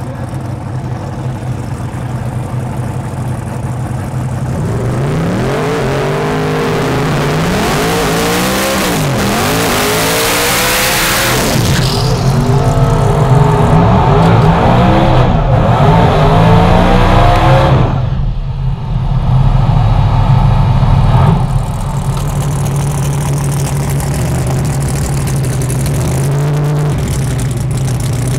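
Methanol-fuelled twin-turbo 454ci billet Noonan V8 of a drag-race HSV GTO idling, then revved again and again in rising and falling sweeps, with a few seconds of loud rushing noise about eight seconds in. About twenty-two seconds in it settles back to a steady idle, with one short blip of throttle near the end.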